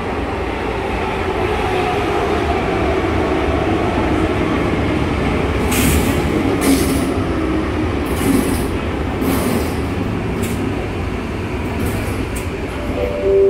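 A 1990s Hellenic Shipyards/MAN/AEG/Siemens electric metro train rolling along the platform, with a steady rumble, faint wheel squeal and several short hisses around the middle.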